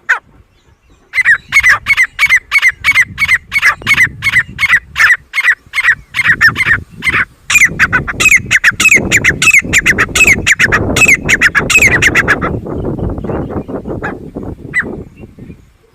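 Grey francolin calling: a loud, rapid series of sharp, high calls, about three a second, that runs for some eleven seconds and stops about twelve seconds in. A low rumbling noise runs underneath in the second half.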